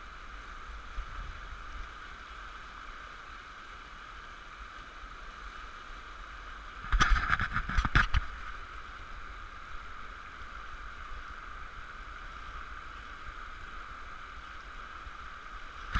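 Rushing whitewater of a river rapid around an open canoe, a steady hiss. About seven seconds in, a loud burst of several knocks and splashes lasts about a second.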